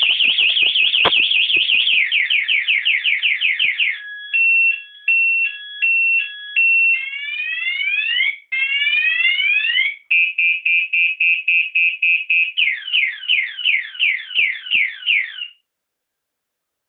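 Scooter alarm siren going off when the scooter is disturbed a second time, cycling through its tones: a fast warble, a two-tone hi-lo, rising whoops, rapid beeping, then falling sweeps. It stops suddenly near the end.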